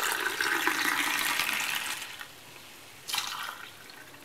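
Hot herbal milk drink poured from one vessel into another to cool and froth it, in a long pour that stops about two seconds in. A second, shorter pour follows about three seconds in.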